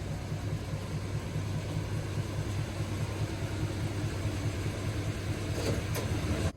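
The 1994 Chevy C2500's 5.7-liter small-block V8 running steadily, a low rumble with an even pulsing beat.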